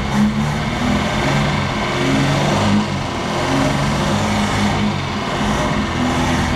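Chevrolet Chevette's four-cylinder engine running after 26 years laid up, its speed rising and falling. It runs without a drive belt, on a carburettor with a worn emulsion-tube part.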